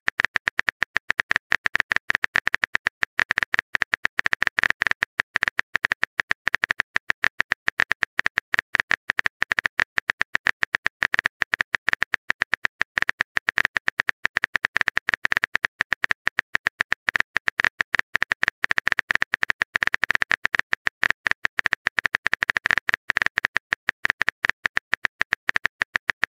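Rapid run of simulated phone-keyboard typing clicks, a texting-app sound effect, many taps per second without pause.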